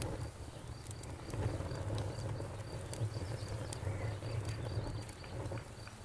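Crickets chirping in a steady, even rhythm over a low, steady rumble, with a few faint clicks.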